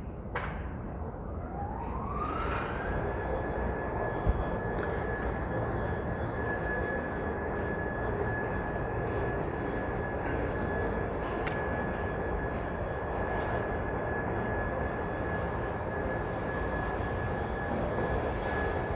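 Traffic noise with a motor whine that rises in pitch over the first few seconds and then holds steady, with a couple of brief clicks.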